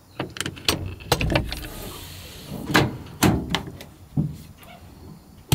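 A string of knocks, clicks and rustling as a person moves about inside a truck and pushes open a window, with a short sliding hiss about two seconds in.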